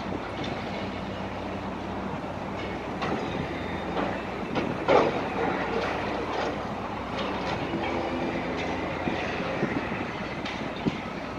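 High-reach demolition excavator working on a concrete building frame: a steady engine drone with scattered cracks and clatter of breaking concrete and debris. The loudest crack comes about five seconds in.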